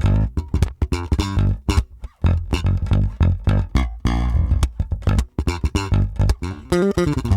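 Tagima TJB-4 four-string electric bass played loud, a fast run of sharply attacked, percussive notes.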